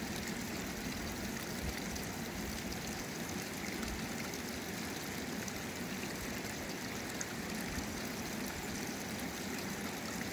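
Water spilling from a small concrete outlet and running down a shallow, stony stream: a steady rushing.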